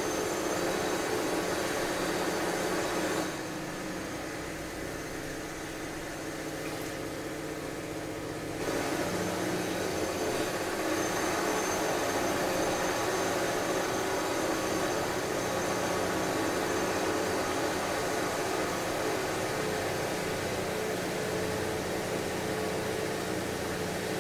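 Steady noise of construction machinery running, a continuous mechanical din with a steady hum. It eases off somewhat about three seconds in and picks back up after about five seconds.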